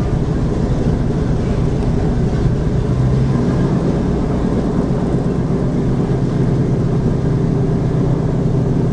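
Boeing B-17 bomber's Wright R-1820 Cyclone nine-cylinder radial engine running steadily just after start-up, a loud, even drone heard from inside the cockpit.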